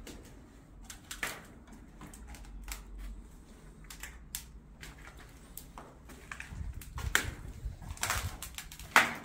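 Footsteps crunching over debris and flaking paint on a littered floor: irregular crunches and clicks that grow busier in the second half, with a louder knock near the end.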